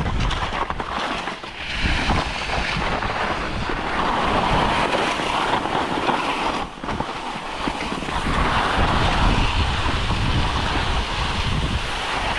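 Wind buffeting the microphone: a steady, loud rush with a low rumble.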